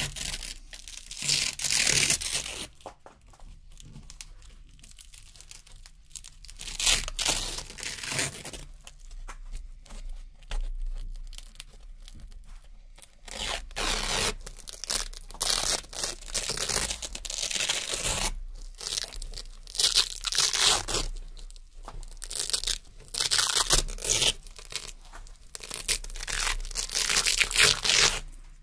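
Velcro hook-and-loop strips being ripped off a fabric backing by hand, in a series of crisp, crunchy tearing rips with quieter pauses between them.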